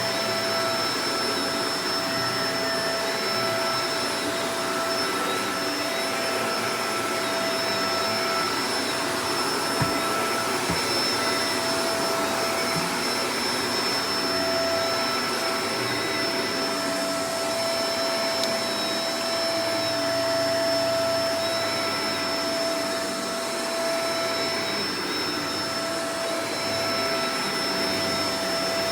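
Shark Professional Powered Lift-Away DLX (NV586) vacuum cleaner running steadily: a constant motor whine over a rush of air, with a couple of small knocks about ten seconds in.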